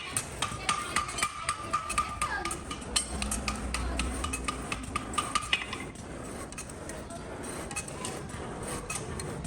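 Hammer striking metal in quick, irregular light blows, several a second, with a high ringing tone over the first two seconds; the blows stop about six seconds in.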